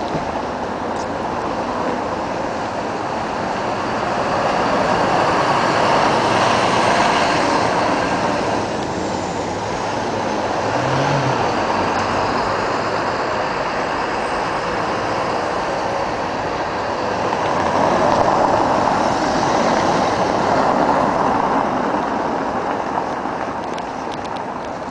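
Street traffic noise: a steady hiss of motor vehicles, swelling twice as vehicles pass close by, about a quarter of the way in and again about three quarters of the way in.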